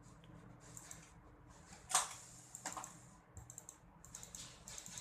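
Typing on a computer keyboard: a run of irregular key clicks, one louder about two seconds in.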